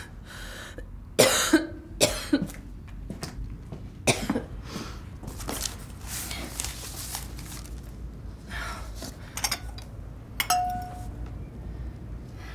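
A few short, sharp rustles and knocks, then a drinking glass clinks and rings with a short clear note about ten seconds in.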